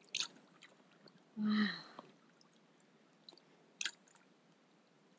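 A few faint, separate wet squelches and small splashes of feet and a hand net in soft mud and shallow water. About a second and a half in there is a brief hum-like pitched sound.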